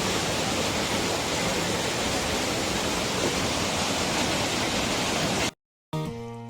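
Waterfall: a steady rush of heavy falling water. It cuts off abruptly about five and a half seconds in, and after a brief silence background music begins.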